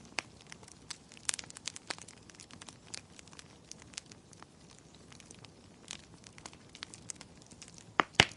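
Wood fire crackling in a fireplace: scattered sharp pops and snaps at an irregular pace, with two louder pops in quick succession near the end.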